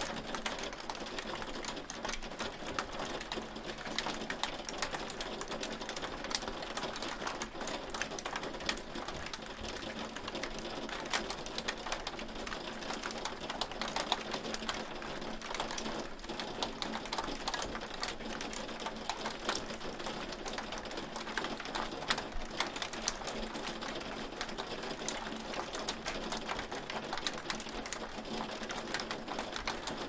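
Hail falling on a hard surface: a dense, steady patter of sharp ticks, with louder single hits scattered among them.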